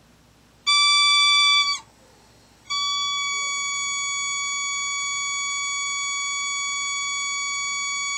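CAREvent MRI transport ventilator's pneumatic low gas-supply pressure alarm: one beep of about a second, a pause, then a continuous steady tone from about three seconds in. The alarm's oscillation has slowed into an unbroken tone, the sign that the gas supply pressure is no longer sufficient for full ventilator function.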